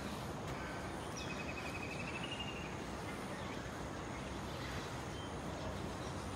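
Steady outdoor background noise. About a second in, a faint high trill rises slightly in pitch and lasts about a second and a half.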